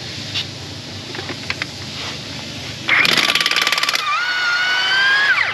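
Ingersoll Rand 1-inch cordless impact wrench on a truck lug nut: about three seconds in it hammers rapidly for about a second, then runs free with a steady whine as the nut spins off, the whine dropping and cutting off near the end.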